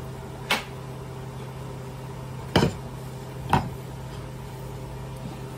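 Three sharp knocks of cookware being handled at the stove while grease is wiped up, the second loudest, over a steady low hum from a kitchen appliance.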